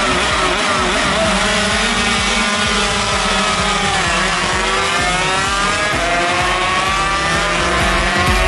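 A pack of racing motorcycles at full throttle, several engines revving high at once with their pitches rising and falling through gear changes. The pitch drops sharply about four seconds in as bikes pass close by.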